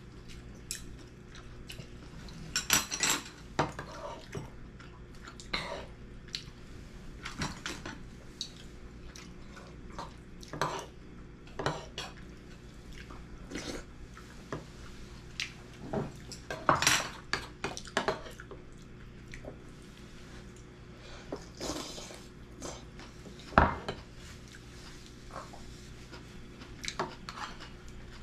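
Irregular clinks and taps of a metal spoon and chopsticks against bowls and dishes during a meal, with a few sharper knocks among them.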